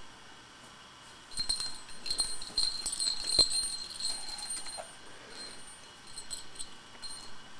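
Small metal objects jingling and clinking as a baby's hand rummages in a wicker basket. The jingling comes in clusters, with one sharper clink about three and a half seconds in and a few more near the end.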